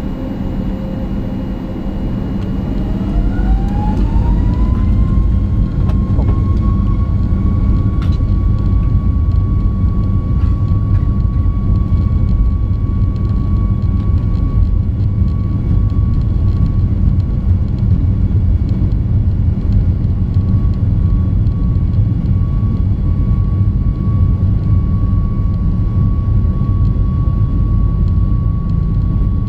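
Boeing 737 MAX 8's CFM LEAP-1B turbofans spooling up to takeoff thrust, heard inside the cabin at a window seat. A whine rises over a few seconds a couple of seconds in, then holds at one pitch over a heavy, steady roar as the jet accelerates down the runway.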